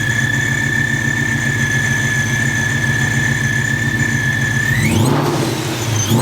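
Mustang's Boss 302 Coyote V8 idling through a 3-inch Spintech exhaust with a steady high-pitched whine over the idle, then blipped once about five seconds in, the pitch rising sharply in a quick rev.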